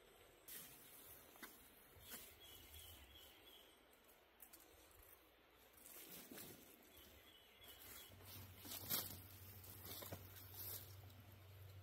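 Near silence: faint scattered rustles and clicks of cord and a tarp being handled while the tarp is rigged, with a few faint bird chirps.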